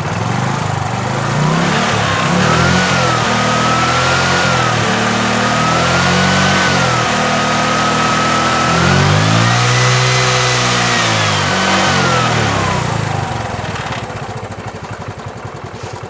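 Bajaj Chetak 4-stroke scooter's single-cylinder four-stroke engine revved up and down several times with the throttle, the biggest rev about two thirds of the way in, then settling back toward idle near the end. Freshly started and still cold, it runs smoothly with no misfire or knock.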